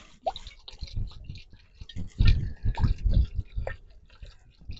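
Wooden beehive frames and boxes being handled: irregular knocks, clicks and scrapes, with two short squeaks.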